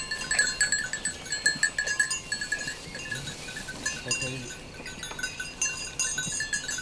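Small bells on a grazing flock of sheep clinking irregularly as the animals move and feed.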